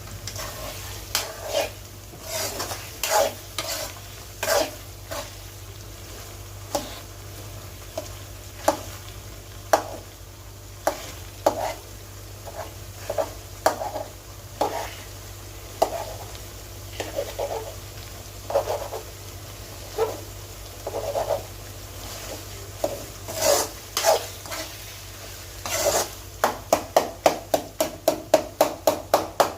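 Goat brain frying in a pan while it is stirred and scraped, with irregular scrapes and knocks of the utensil against the pan over a faint sizzle. Near the end, a quick even run of taps against the pan, about three a second.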